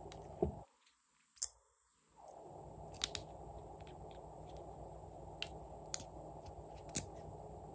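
Sharp plastic clicks and taps, about seven spread a second or so apart, as the caps are pulled off plastic lip gloss tubes. Beneath them is a low steady hiss that drops out for over a second near the start.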